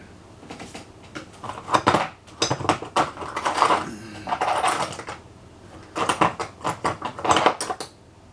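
Metal hand tools clattering and clinking against each other as they are rummaged through and handled, in irregular bursts of sharp clanks.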